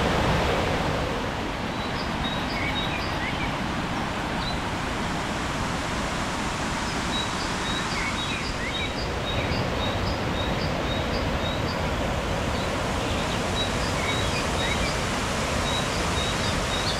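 Steady rush of falling water from a waterfall, with runs of short, high chirps from a small bird over it.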